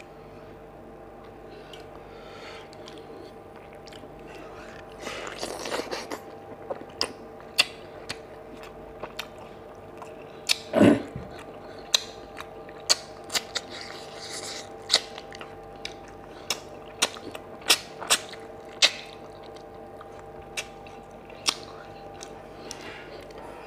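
Close-miked mouth sounds of a man eating rice and fish curry: wet chewing with a string of sharp lip smacks and clicks, the loudest a longer wet smack about eleven seconds in. A steady faint hum lies underneath.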